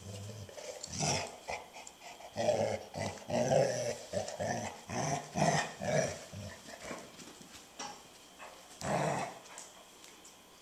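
Two puppies play-growling at each other as they wrestle, a string of short growls and snarls. The growls come thickest in the first seven seconds, with one last burst near the end.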